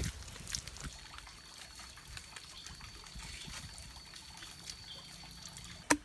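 Hands squelching and working very wet clay mud, with small trickling, dripping sounds of muddy water. A faint steady high whine runs through most of it, and a single sharp click comes just before the end.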